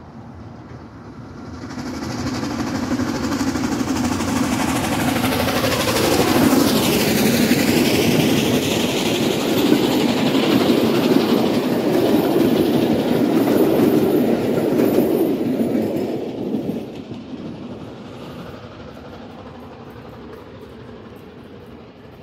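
Steam-hauled passenger train passing close by: the sound builds about two seconds in, the locomotive goes past about six seconds in, and the coaches' wheels roll by on the rails until the noise falls away after about seventeen seconds.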